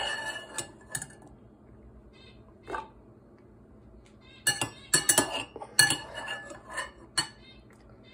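Kitchenware being handled on a counter: a series of sharp clinks and knocks with brief ringing, a few at the start, one alone a little later, then a quick run of them about halfway through.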